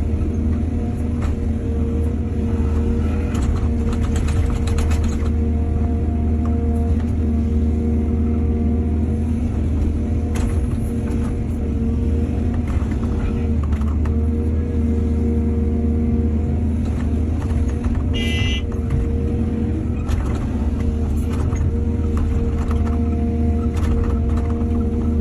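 Excavator's diesel engine running steadily, with scattered knocks and clatters, a cluster of them about four seconds in, and a brief high-pitched squeal about eighteen seconds in.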